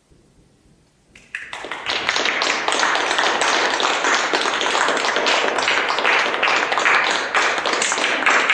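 Audience applause breaking out about a second in, quickly swelling to steady clapping.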